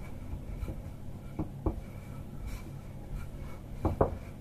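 Wooden rolling pin rolling out a sheet of dough on a countertop: a soft rubbing, with two pairs of light knocks, about a second and a half in and again near the end.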